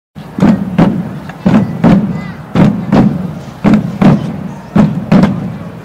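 Steady rhythm of paired low thumps, two quick strikes about one a second, like a heartbeat.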